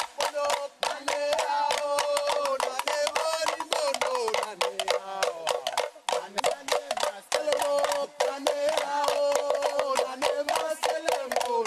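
Music of sticks striking bamboo tubes in a fast rhythm of sharp clicks, under a melody of held notes that step up and down.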